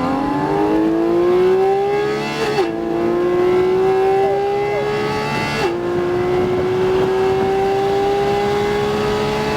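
Porsche 718 Cayman GT4 RS's naturally aspirated flat-six accelerating at full throttle, its pitch climbing steadily, with two quick upshifts about two and a half seconds in and again about three seconds later, each a sharp drop in pitch before the climb resumes.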